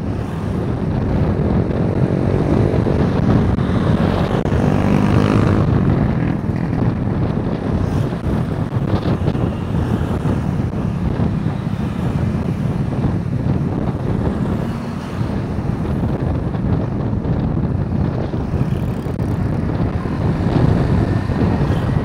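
Steady wind rumble on the microphone of a moving bicycle, mixed with road traffic noise. An engine passes close, its pitch sweeping, around four to six seconds in.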